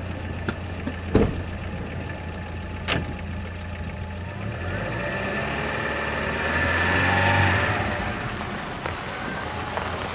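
Chevrolet Niva SUV engine idling just after starting, with two sharp knocks in the first three seconds. The engine note rises about six seconds in and eases back as the car moves off towing the boat trailer.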